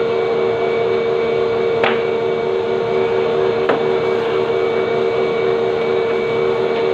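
Steady machine hum with a constant low drone, with two short clicks about two and three and a half seconds in.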